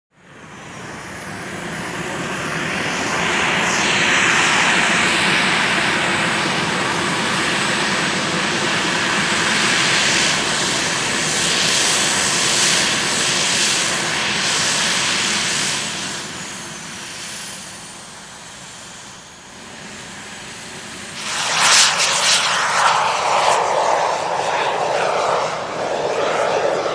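Turbine of a Viper Jet XL RC model jet running: a rushing hiss with a thin high whine over it. The sound swells over the first few seconds, the whine falls in pitch past the middle, and a sudden louder rush comes in about three quarters of the way through.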